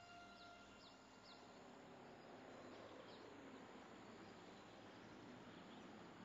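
Near silence: faint outdoor street ambience with a few faint, short high chirps in the first second and again about three seconds in.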